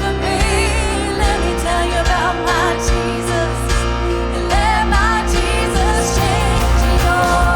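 Live contemporary worship band playing: singers with wavering vibrato over drums, bass guitar, keyboards and guitar, with a steady beat.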